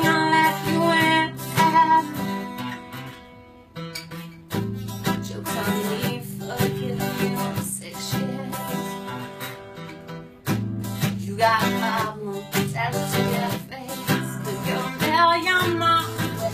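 A woman singing to her own strummed cutaway acoustic guitar; the strumming eases off briefly about four seconds in and again about ten seconds in before picking up.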